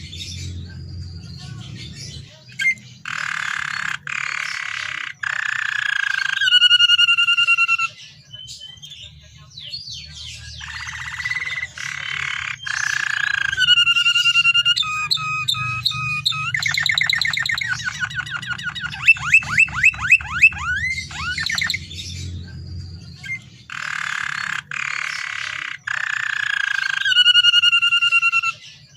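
Domestic canary in full song: fast trilled rolls, phrases held on steady notes, and runs of quick rising sweeps. These come in three long spells with short pauses between them, over a low steady hum.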